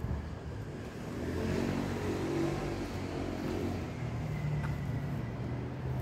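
A motor vehicle's engine hum swells about a second in and eases off again, as when a vehicle passes close by, and a steadier low hum carries on after it.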